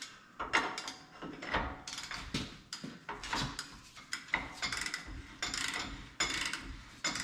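Irregular metallic clicks and clinks of tools and wheel-hub parts being handled during a truck wheel-seal job, with no steady rhythm.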